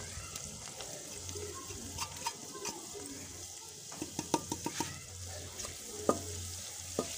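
Onion-tomato masala frying in ghee in a metal pot, sizzling steadily. Over the sizzle comes a run of sharp taps and clinks: spices are knocked off a plate into the pot, then a metal ladle hits the pot as it stirs, with the loudest clink a little after six seconds.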